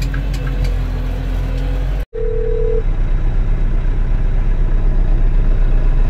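Kioti RX7320 tractor's four-cylinder diesel engine running steadily as the tractor drives, then after an abrupt cut heard from inside the closed cab with an even pulsing. Just after the cut, an outgoing phone call's ringing tone plays through the cab's Bluetooth stereo for under a second.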